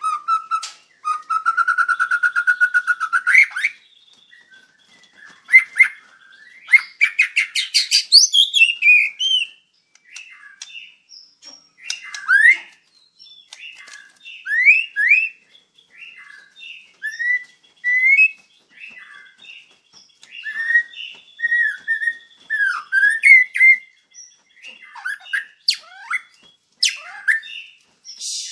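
White-rumped shama singing a varied, continuous song. It opens with a fast rattling trill and a rising run of rapid notes, then goes on to a string of short whistled phrases that slide up and down, with a few sharp clicks near the end.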